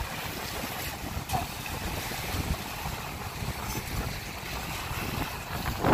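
Small waves washing and breaking on a pebbly shore, with wind buffeting the microphone in a steady low rumble.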